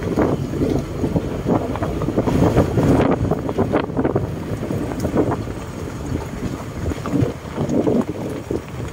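Car driving slowly over a rough gravel road, with wind buffeting the microphone held out of the window and irregular crunches and knocks of loose stones under the tyres.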